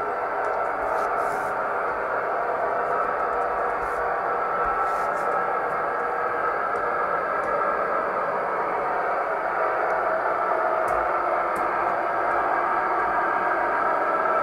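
Gauge 1 model VT 04.5 diesel railcar running along the track: a steady whirring, rolling noise of its wheels and motor that grows slightly louder.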